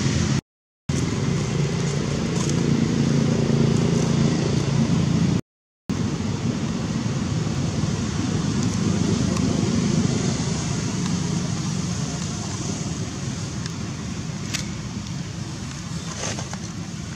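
Road traffic: a motor vehicle's engine running with a steady low hum, giving way to an even rushing noise that slowly fades over the last several seconds. The sound cuts out to silence twice, briefly, near the start and about five seconds in.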